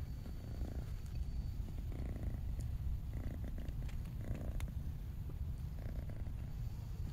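Kitten purring steadily and close up, the purr swelling about once a second.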